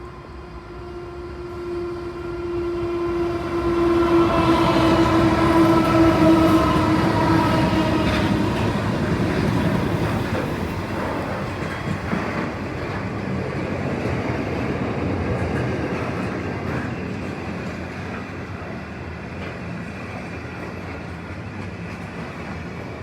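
A passenger train running past on the rails with a loud rumble. A steady pitched tone sounds over it from about one second in and fades out around eight seconds in.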